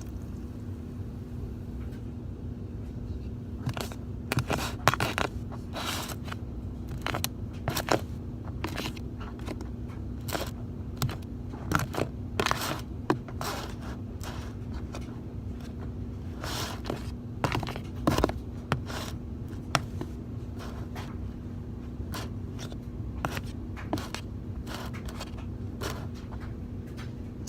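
Mixing slime in a bowl: irregular scrapes and clicks of a utensil against the bowl, over a faint steady hum.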